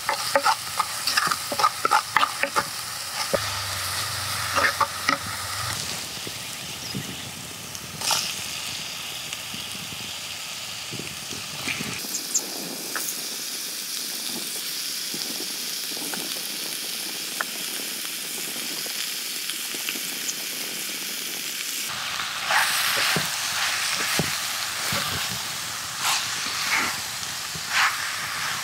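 Chopped chili and garlic sizzling in hot oil in a clay pot, with a wooden spatula scraping and knocking against the pot as it stirs. The stirring knocks come thick in the first few seconds, ease off in the middle, and pick up again with the sizzle near the end once the lizard meat is in.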